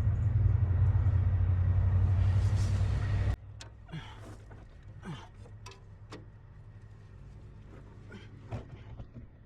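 A steady low rumble cuts off abruptly about three seconds in. After it come scattered light clicks and taps of hand work on a bolt, nut and bracket for the horn mount.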